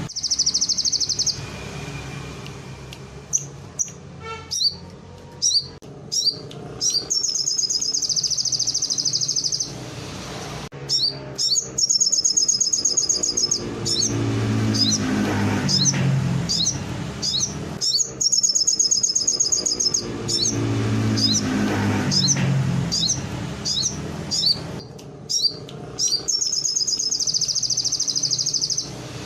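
Little spiderhunter (sogon) singing: bursts of rapid high trills of about two seconds each, canary-style phrases it has been taught, with short sharp chips in between. A low background rumble runs underneath.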